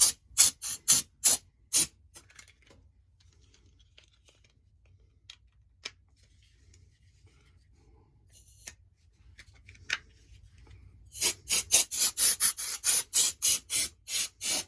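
Quick rubbing strokes dusting off a washing machine part: a run of about six at the start, then a faster run of a dozen or more, about four a second, near the end.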